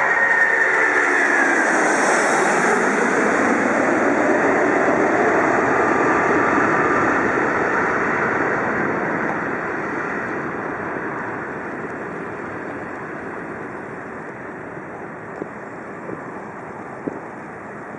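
Boeing 747-400 jet engines at takeoff power: a broad roar, with a high whine falling in pitch at the start as the aircraft passes, then fading steadily into the distance over the second half.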